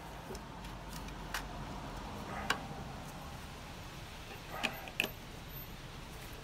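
A handful of sharp, scattered clicks of a screwdriver working the mounting bolt of a new ignition coil on a Tecumseh lawnmower engine, metal tool on bolt and coil bracket.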